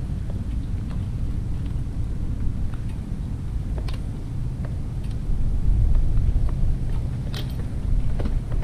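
1993 Harley-Davidson FXR's 1340 cc Evolution V-twin idling steadily, with a few light clicks and taps over it.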